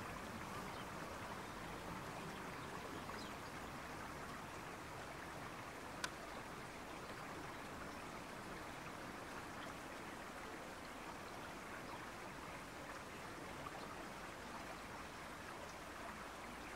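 Steady rush of fast-flowing tidal river water, with one sharp click about six seconds in.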